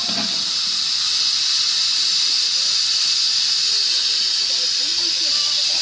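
BR Standard Class 4MT 4-6-0 steam locomotive letting off steam: a loud, steady, high hiss that builds over the first second or so, then holds.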